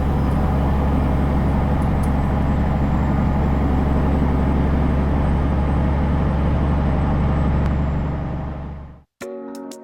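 Heavy truck running at road speed: a steady low engine drone with road noise, fading out about eight seconds in and then cut off abruptly.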